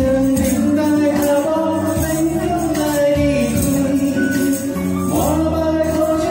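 A man sings through a microphone and PA over recorded backing music, holding and bending long notes, with tambourines jingling along.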